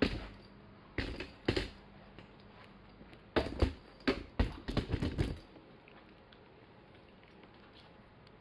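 Several sharp knocks and clicks: two about a second in, half a second apart, then a quick irregular run of them between about three and a half and five seconds in.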